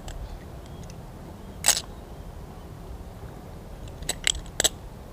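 Balisong (butterfly knife) handles clacking against the blade and each other while being flipped through a combo: one sharp clack, then a quick run of three clacks near the end.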